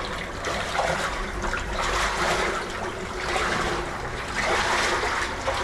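Boots wading through shallow stagnant water and mud, sloshing and splashing in uneven surges with the steps.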